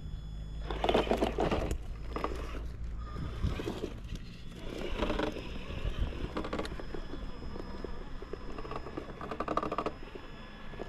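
Traxxas TRX-4 RC crawler working over rock: its electric motor and gearbox whine in spurts while the tyres scrape and crunch on stone and grit, with clattering bursts about a second in, around five seconds, and longest near the end.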